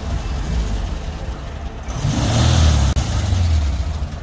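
Engine of a vintage-style open roadster running as the car drives slowly past, getting louder as it comes close about two seconds in.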